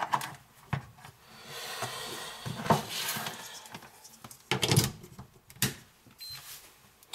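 Handling clicks and knocks as cables and connectors are worked around a Sigma 2 balance charger on a hard countertop, the loudest about a third of the way in and again past the middle. Near the end a single short high beep as the charger powers on.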